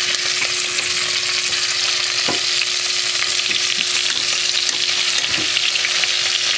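Beef short ribs searing in melted butter in an Instant Pot on sauté: a steady, dense sizzle. A few light clicks of metal tongs against the stainless inner pot as the ribs are turned, the clearest about two seconds in and again near the end.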